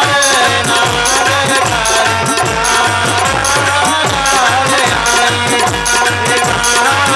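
Bundeli folk music: a steady hand-drum beat about twice a second under a wavering melody line, with repeating high percussion accents.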